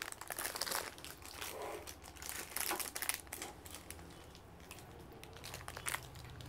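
Crinkling and light clicking as bangles are handled and passed over for showing. The handling goes quiet for about a second and a half past the middle.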